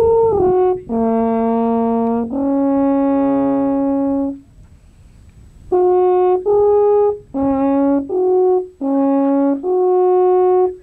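Alphorn playing a slow melody. A few short notes give way to two long, low held notes, then comes a breathing pause about four and a half seconds in, followed by a run of shorter notes.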